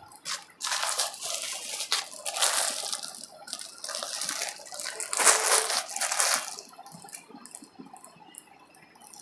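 Plastic packaging of garment packets crinkling and rustling as they are handled and lifted, in irregular bursts that die down after about six and a half seconds.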